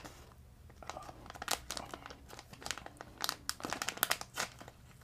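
Crinkling and crackling of a paper-and-plastic accessory packet being handled and pulled open by hand, in irregular crackles that grow busier after the first second.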